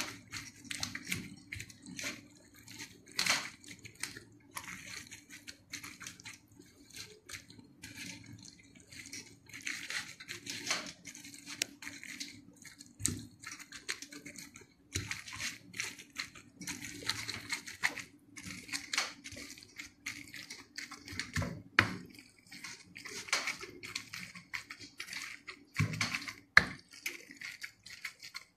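Wooden spoon mixing torn rotis into wet curry in a large metal pan: irregular wet stirring and mashing, with scrapes and knocks of the spoon against the metal.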